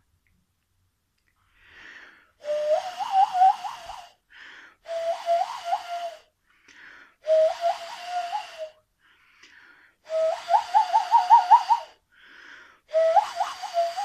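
Cupped-hands whistle imitating an owl's hoot, blown across the slit between two fingers: five breaths, each a hollow tone that warbles rapidly upward in pitch, the last starting near the end. A breathy intake of air can be heard between blows.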